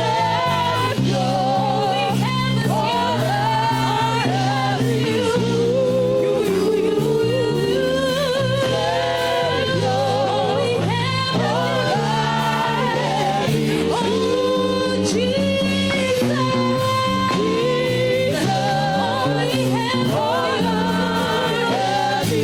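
Gospel worship music: voices singing long, wavering melodic lines over a steady keyboard and bass accompaniment.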